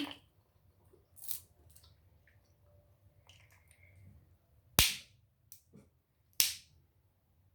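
Crab shells cracking as the legs are snapped open by hand: a softer crack about a second in, then two loud, sharp cracks in the second half.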